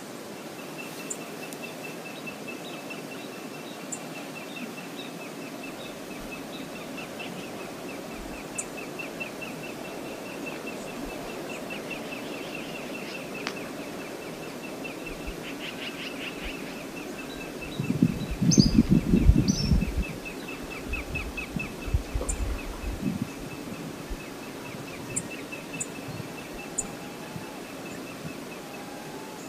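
River water running steadily, with a fast trill at one high pitch carrying on throughout and a few short, high chirps. About 18 seconds in a loud, low rumbling burst lasts about two seconds, followed by a few smaller ones.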